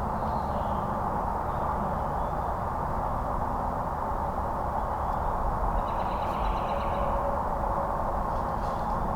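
Steady outdoor background noise with faint bird calls about six to seven seconds in.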